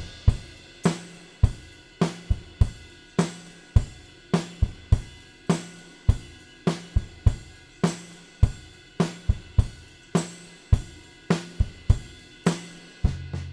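Studio playback of a recorded Ludwig Classic Maple drum kit on its own: kick, snare, hi-hat and cymbals playing a steady rock beat, tracked with heavy reverb, so each hit rings out. Near the end it changes to a busier pattern with booming low drums.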